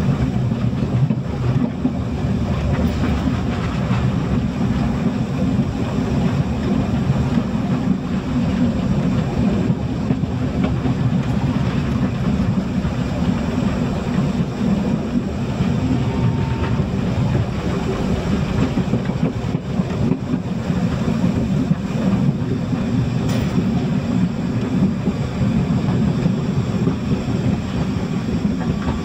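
Narrow-gauge steam train under way, heard from aboard: the steady low rumble of the running train and its wheels on the rails.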